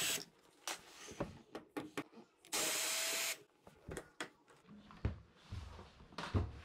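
Ryobi ONE+ cordless drill/driver spinning with a steady whine as it backs out screws from the washer's front panel: the tail of one run at the start and one run of about a second near the middle. Clicks and light knocks of handling come between the runs, with a few low thuds near the end.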